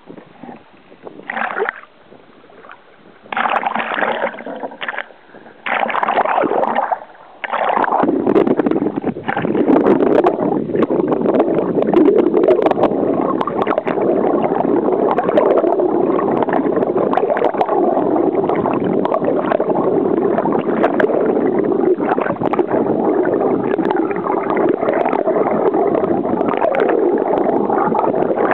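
Seawater splashing in bursts over a camera held at the surface beside a canoe. From about eight seconds in, the camera is submerged and there is a steady, muffled underwater rush of water and bubbles with a fine crackle.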